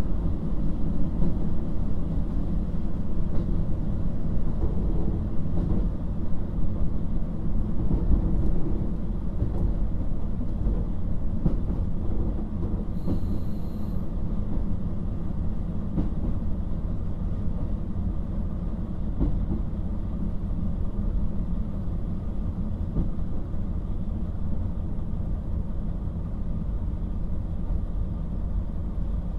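Onboard running sound of a KiHa 40 1700-series diesel railcar under way: a steady low rumble of diesel engine and wheels on rail, with a few faint clicks of wheels over rail joints.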